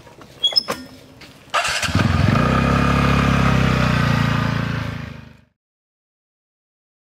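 A few clicks, then a motor scooter's engine starts about one and a half seconds in and runs steadily before fading out.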